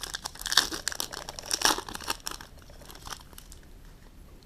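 Foil wrapper of a 2012-13 Panini Certified Hockey card pack being torn open and crinkled by hand: dense crackling for about three seconds, loudest in two spells near the start, then dying down.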